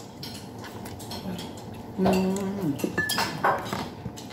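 A metal spoon clinking and scraping against a glass bowl of sauce during eating. About two seconds in comes a short steady low tone that drops off, followed by a brief high ring.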